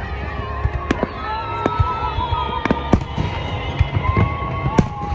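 Fireworks going off in a rapid, irregular string of sharp bangs and pops, with long whistling tones running under them.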